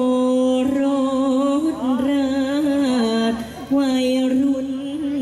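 Solo voice singing a Thai likay song through the stage microphones, holding long notes with a wavering, ornamented melody. It comes in two long phrases, with a breath about three and a half seconds in.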